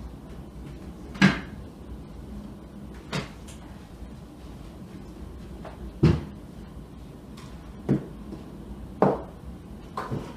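About six separate, irregularly spaced knocks and clunks of household objects being handled, the loudest a bit over a second in and again about six seconds in. The last ones come as a bowl and a wooden pastry board with a rolling pin are set down and shifted on a table.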